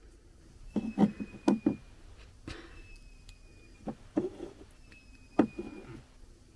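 Eggs and a plastic egg candler being handled: a run of irregular soft knocks and clicks, several close together in the first two seconds and a sharper one about two-thirds of the way through.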